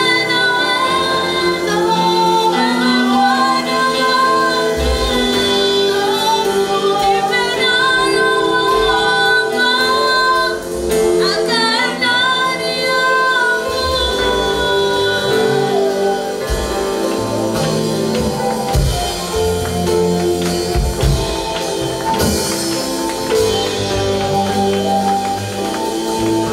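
Gospel worship song: voices singing long held lines over keyboard-like sustained chords, with bass notes coming in about five seconds in.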